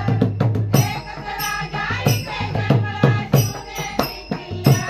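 Instrumental interlude of a Marathi song: a melody over a steady beat of drums and jingling, tambourine-like percussion.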